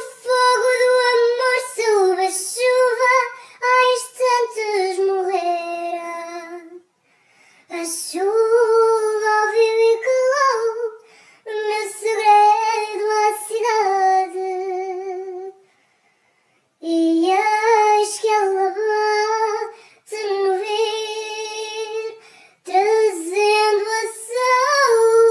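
A solo high female voice singing unaccompanied, in about six held phrases with brief pauses for breath between them, the longer notes wavering with vibrato.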